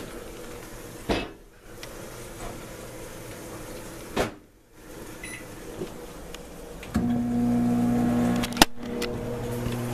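Microwave oven running while it cooks an ear of corn on the cob: a steady electrical hum that becomes much louder and fuller about seven seconds in. A few sharp clicks come along the way, one about a second in and one about four seconds in.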